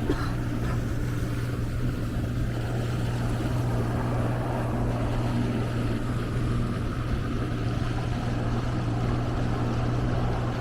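Fishing boat's motor running at a steady speed, a constant low hum, with wind and water noise of the boat moving across the lake.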